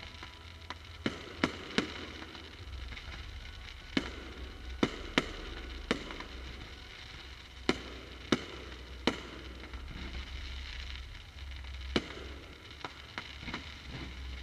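Fireworks exploding in the sky: about fifteen sharp bangs at irregular intervals, some in quick pairs, over a steady background noise.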